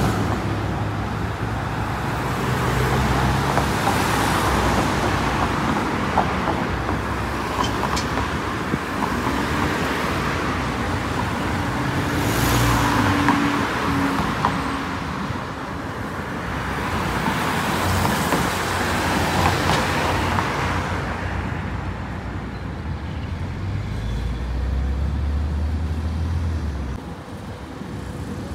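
Road traffic: cars driving past one after another, the noise swelling and fading with each, with a deeper engine hum near the start and again near the end.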